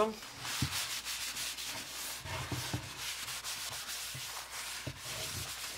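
A rag rubbing oil into the underside of a wooden stool seat and its legs: repeated scratchy wiping strokes, with a few light knocks.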